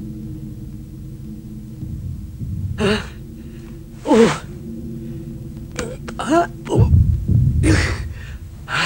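A cartoon man's short non-verbal vocal sounds: grunts, groans and gasping coughs, one sliding down in pitch. They come in a run over a low steady hum, with a heavy low thump near the end.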